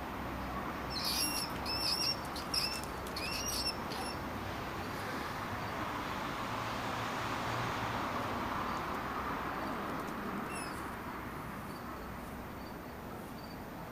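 A quick run of short, high-pitched squeaks from a small animal in the first few seconds, with one more later, over a steady outdoor hiss.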